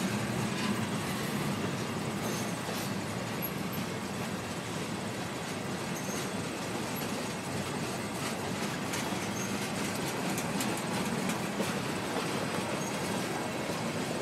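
Freight train tank cars rolling past close by: a steady rumble of steel wheels on the rails with scattered faint clicks.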